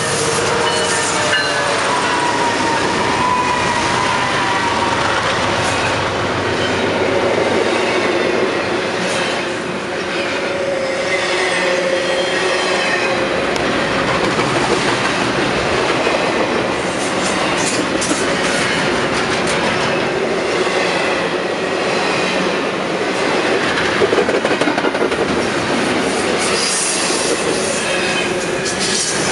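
Freight train passing close by: EMD diesel locomotives go by first, then double-stack intermodal well cars loaded with containers roll past, wheels clacking over the rails with faint squealing. The sound is loud and steady throughout.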